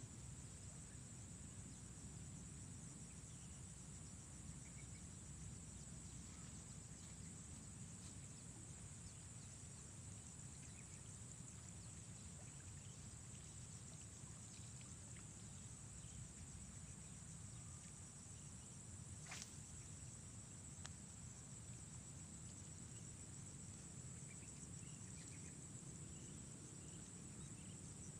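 Quiet pond-side ambience: a steady high insect trill over a low, even rumble. A single sharp click about 19 seconds in.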